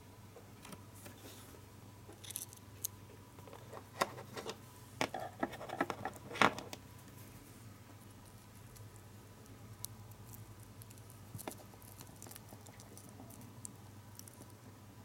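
Close handling noises: small crinkles and sharp clicks as a foil gum-wrapper origami helmet and a small plastic figurine are picked up and fitted together, busiest from about two to seven seconds in, then only a few faint ticks. A faint steady hum lies underneath.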